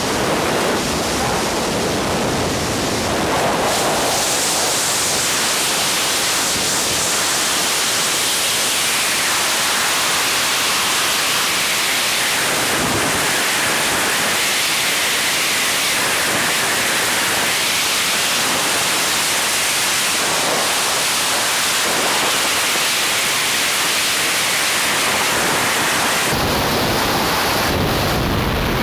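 Loud, steady rush of freefall wind over the skydiving camera's microphone. Near the end the sound changes, with more low rumble, as the student's parachute starts to deploy.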